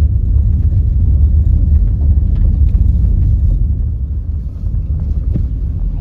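A vehicle driving slowly on a dirt road, heard from inside the cabin: a steady low rumble of engine and tyres, with a few light knocks.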